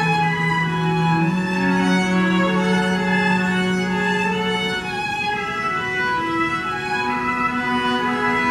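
A string quartet, two violins, viola and cello, bowing slow, long held chords that change every few seconds, in an instrumental passage of a live song.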